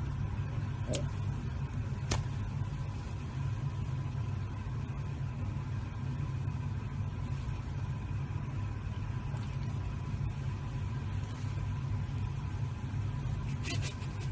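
A steady low-pitched hum, like a motor or appliance running, with a faint constant higher tone over it and two light clicks about one and two seconds in.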